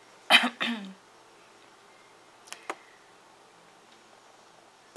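A brief voice sound about half a second in, then two sharp computer mouse clicks in quick succession about two and a half seconds in, over quiet room tone.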